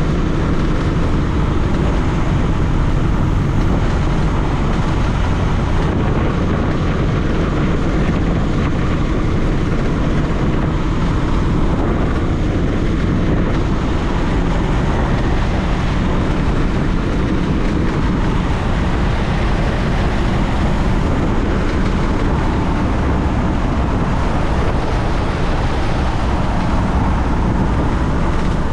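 Piper J-3 Cub's engine and propeller running steadily, with wind noise, heard from inside the small cockpit.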